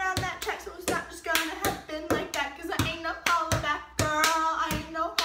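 Rhythmic hand claps, about two to three a second, with a young woman's voice singing or vocalizing in between.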